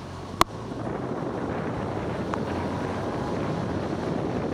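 Wind on the microphone of a roof-mounted 360 camera on a moving car, with tyre hiss on a wet road, growing louder about a second in. A single sharp click just before that is the loudest sound.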